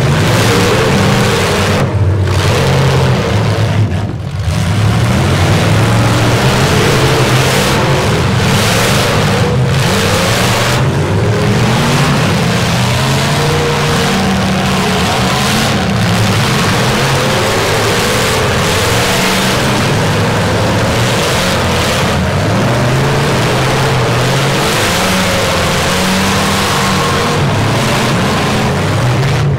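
Several derby trucks' engines revving hard together, their pitch rising and falling over and over as they accelerate and back off.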